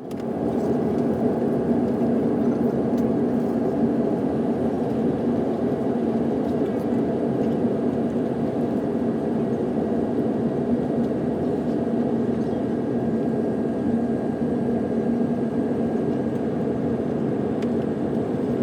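Steady roar of an Airbus A330's engines and airflow heard inside the passenger cabin during the approach, with a faint high steady tone above it.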